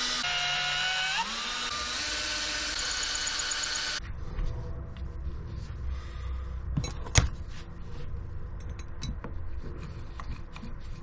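Electric drill running, its motor whine rising in pitch twice during the first four seconds. The whine then stops abruptly, and a low rumble follows with scattered small clicks and one sharp knock about three seconds later.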